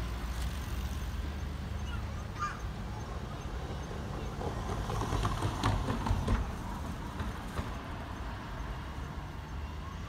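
Keikyu 1000-series electric train pulling away through the depot tracks, its wheels knocking and clattering over rail joints and points about halfway through, over a steady low hum.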